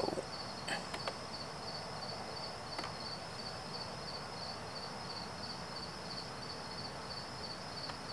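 Night insects chirping steadily in a high, evenly pulsing trill, with a few faint clicks in the first three seconds.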